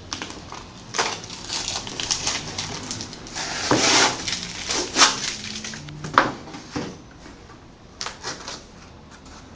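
Packaging being handled and torn open: irregular crinkling, rustling and scraping, busiest in the middle with a few sharp crackles, then dying down over the last few seconds.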